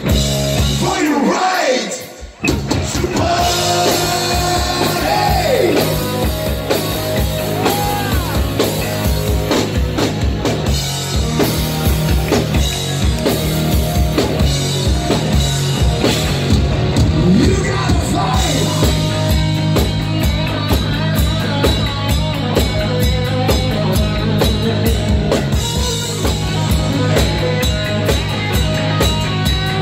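Live rock band playing: electric guitar, bass guitar and a drum kit, with a singer singing into a microphone. The band stops briefly about two seconds in, then comes back in full with drums driving a steady beat.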